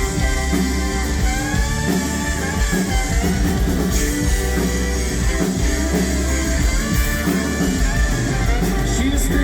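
Live country-rock band playing an instrumental passage of a song, with electric guitar and drum kit.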